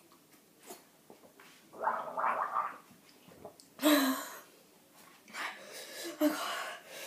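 A person gargling water in the mouth, then breathing out hard with a loud voiced gasp about four seconds in and more heavy breaths after it, from the burn of a hot chili.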